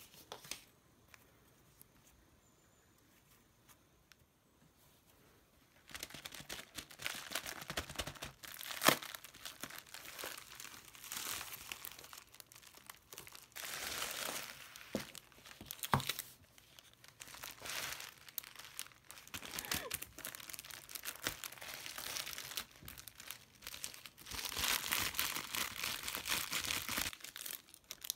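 Plastic packaging crinkling and rustling as a clear plastic mailer bag is opened and plastic-wrapped items are taken out, with a few sharp clicks among it. It starts about six seconds in after a quiet stretch and is busiest near the end.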